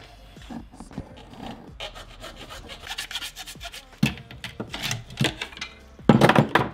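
Hacksaw cutting through PVC pipe: rapid back-and-forth rasping strokes that come in after a second or two and grow louder, with the loudest scraping near the end.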